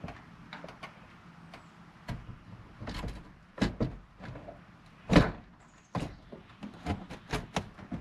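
RV roof vent fan housing being set into the roof opening and worked into position: a run of knocks and scraping thuds against the roof, the loudest thump about five seconds in, heard from inside the van below.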